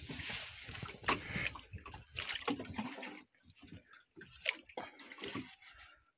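Sea water sloshing and splashing irregularly against a small boat's hull, in uneven surges.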